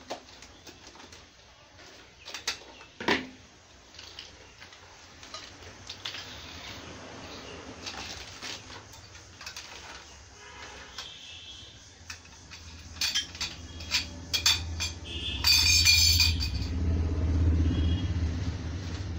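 Plastic wrapping rustling and crinkling as bundled steel wardrobe tubes are cut open and unwrapped, with scattered sharp clicks and knocks of the tubes and scissors. A louder crinkling rustle comes about sixteen seconds in, over a low hum that builds in the second half.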